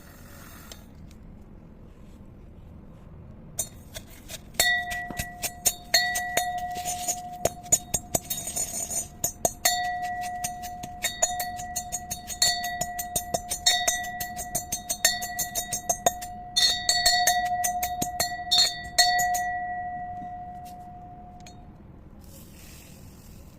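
A glass container struck over and over with a hard utensil, a quick run of clinks. It rings with a clear, bell-like tone that fades out a couple of seconds after the last tap.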